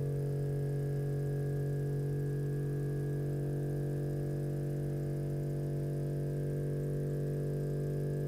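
Electromagnetic mechanical wave driver buzzing with a steady hum while it shakes a stretched string, driven by a function generator at about 47 Hz. The drive frequency is being slowly turned up to find a standing-wave resonance on the string.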